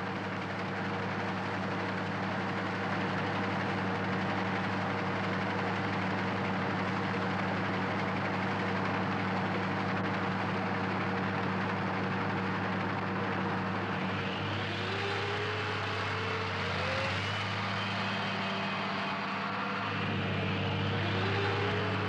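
An engine running steadily with a low hum. From about two-thirds of the way in, its pitch rises and falls in glides.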